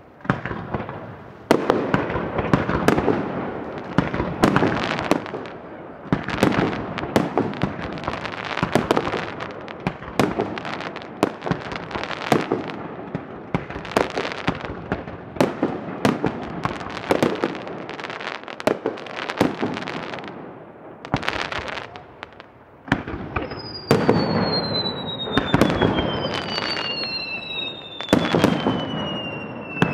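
Fireworks display: a dense, continuous run of bangs and crackling bursts, with several whistles falling in pitch in the last few seconds.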